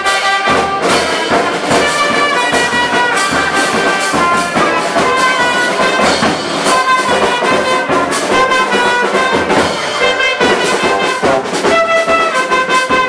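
A street brass band with a drum playing: brass instruments hold the notes of a tune over steady drum beats.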